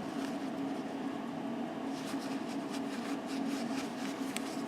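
A steady mechanical hum, with faint soft rubbing strokes in the second half.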